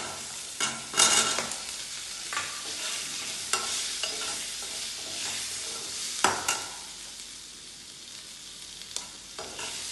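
Shallots, green chillies and curry leaves sizzling steadily in sesame oil in a kadai, while a steel spatula stirs them. The spatula scrapes and knocks against the pan several times, loudest about a second in and again about six seconds in.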